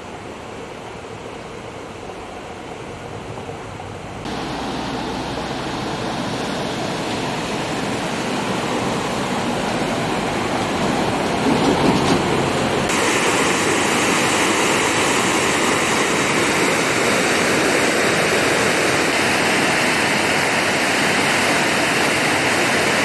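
Steady rushing of a flood-swollen river. It gets louder in two sudden steps, about four seconds in and again about halfway through.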